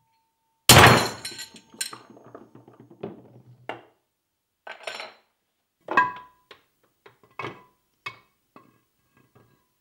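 A hammer blow on the steel main shaft of a Land Rover Series 3 gearbox, driving it out through the rear bearing, lands less than a second in and rings on. A scattered string of lighter metallic clinks and knocks follows.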